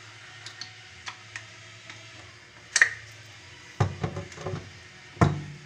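Objects being handled: scattered light clicks and taps, then a sharp clink about three seconds in, a quick run of knocks a second later, and a loud thump near the end.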